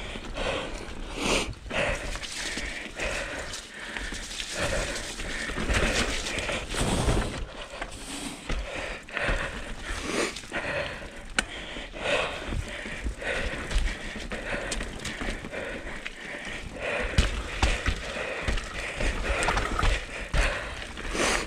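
Mountain bike rolling down a rough dirt trail: tyres running over dirt, roots and rocks, with a continuous irregular clatter of knocks and rattles from the bike.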